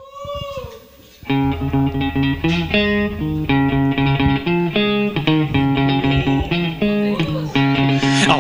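Live band intro: after a short sliding tone, a guitar plays a melody of clear picked notes from about a second in, over a low held bass note at first.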